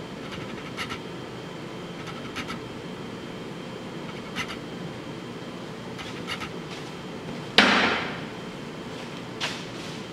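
Light clinks of metal engine parts and tools being handled on a steel workbench, then one sharp metallic clunk about three-quarters of the way through that rings briefly. A faint steady hum runs underneath.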